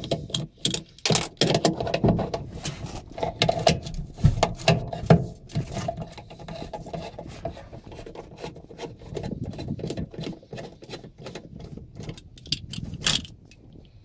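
Socket wrench working a bolt on a washing machine motor's casing while carbon brushes are fitted: irregular metallic clicks and scrapes, busiest in the first six seconds and sparser after, with one sharp click near the end.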